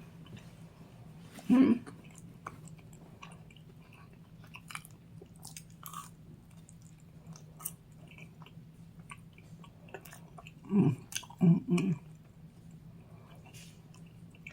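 Close-miked chewing of thin-crust pepperoni pizza, with many small wet mouth clicks. It is broken by short hums of the eater's voice about a second and a half in and again around eleven seconds.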